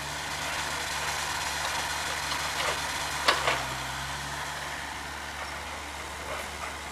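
Komatsu PC40-7 mini excavator's diesel engine running steadily while the machine works. Two sharp knocks come about three and a half seconds in, and the engine note drops a little for about a second after them.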